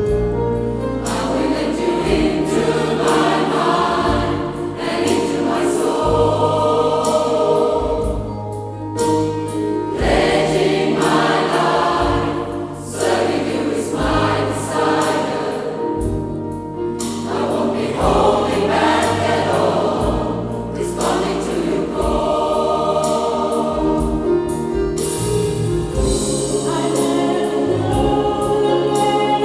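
Gospel choir singing, with low sustained accompaniment notes that change every second or two underneath.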